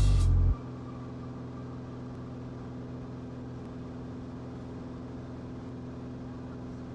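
Steady drone of a Cirrus SR20 G6's piston engine and propeller in cruise, heard through the cockpit audio feed, with an even low hum. Background music cuts off about half a second in.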